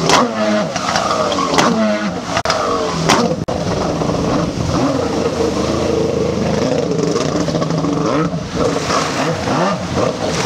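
Stand-up jet ski engine revving hard and dropping back again and again during freestyle tricks, its pitch sweeping up and down every second or so, with a steadier run in the middle. Sharp splashes and slaps of the hull on the water break in several times.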